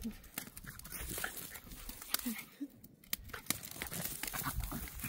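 Two dogs play-wrestling on dirt and gravel: several short dog vocal sounds, with paws scuffling and scraping on the ground.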